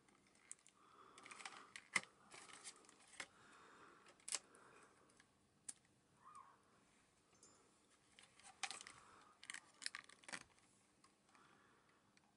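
Faint clicks and rustling from hands handling an opened video camera's plastic case and circuit boards, with the sharpest click about two seconds in and another run of clicks about two-thirds of the way through.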